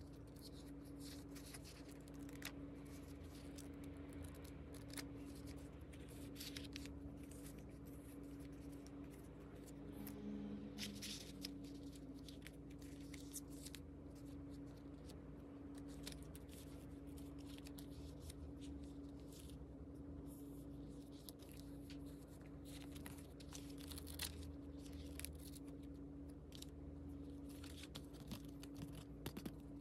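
Faint paper rustling and page flips as small handmade paper notebooks are handled, with many short crisp clicks of paper over a steady low hum.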